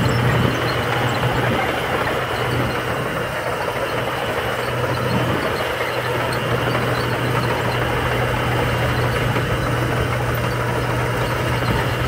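Komatsu crawler bulldozer's diesel engine running steadily as the dozer pushes gravel with its blade.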